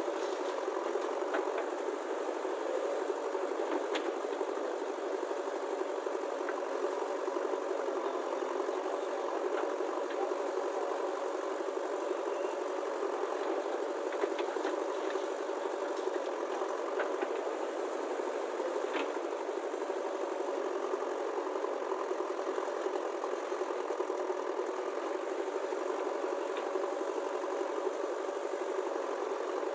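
Small motor of a toy construction vehicle running steadily, with a few faint clicks.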